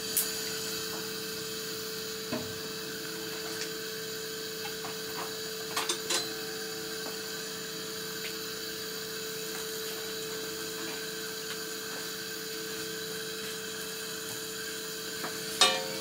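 A steady mechanical hum with a whine, unchanging throughout, with a few light knocks about six seconds in and again near the end.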